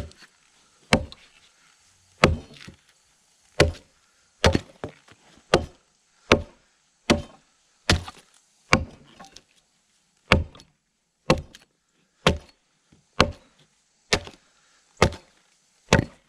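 Broad axe hewing the side of a log: a steady series of sharp chopping strikes into the wood, about one a second.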